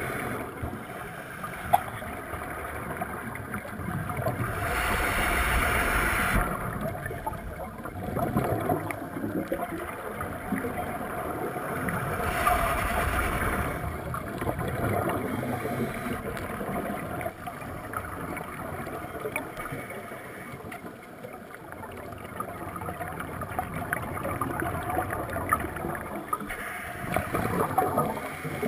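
Scuba diver breathing through an Ocean Reef integrated full-face mask, heard underwater: a steady bubbling rumble of exhaled air, with two louder rushes of bubbles, one about five seconds in and one about twelve seconds in.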